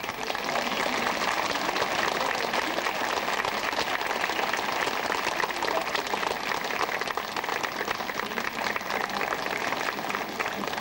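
Audience applause, a dense steady clapping that sets in suddenly.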